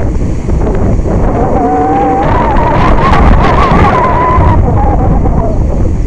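Strong wind buffeting the microphone with a heavy rumble throughout. In the middle, a wavering whine rises and then falls over about four seconds.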